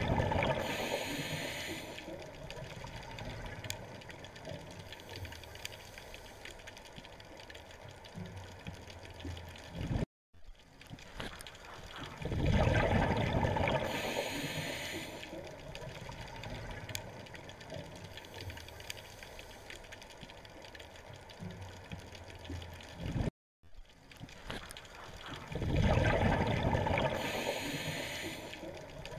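Underwater sound of a scuba diver's breathing: three swells of rushing, gurgling bubble noise as breath is let out through the regulator, each fading over a few seconds, with a low rumble in between. The sound cuts out briefly twice.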